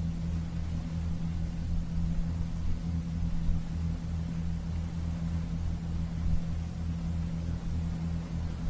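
Steady low engine drone: a deep hum with a slight regular pulse, over an even hiss.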